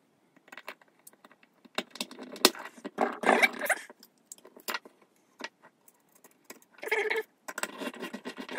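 Long hand screwdriver driving small screws through a 3D-printed plastic plate into a small motor: irregular metal clicks and short scraping rasps as the screws turn, with light knocks of the plate on a wooden worktop.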